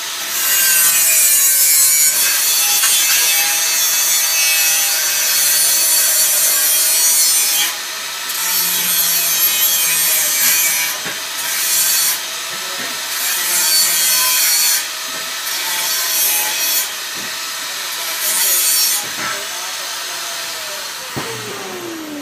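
Handheld angle grinder's disc working stainless steel tubing in repeated passes of a few seconds, a harsh grinding hiss each time it bites, with the motor's whine sagging under load. Near the end the grinder is switched off and its whine winds down.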